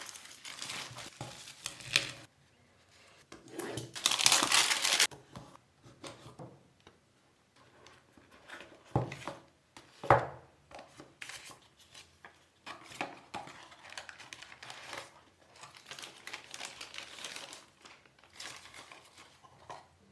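An iPhone box and its wrapping being opened by hand: crinkling and rustling of wrap and paper, with one longer tearing sound about four seconds in. Sharp knocks of the box and its contents being handled stand out about two, nine and ten seconds in.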